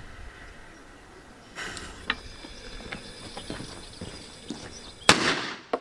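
A lit fuse hissing with a few small crackles, then about five seconds in a single sharp bang as a small minerva firecracker explodes inside a small plastic bottle, tearing the bottle open at the bottom.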